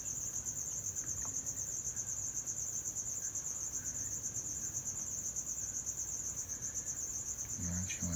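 Crickets chirping in a steady, high, fast-pulsing trill.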